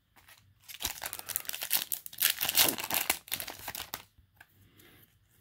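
Foil Yu-Gi-Oh! booster pack wrapper crinkling and tearing open for about three seconds, starting about a second in, followed by quieter handling of the cards.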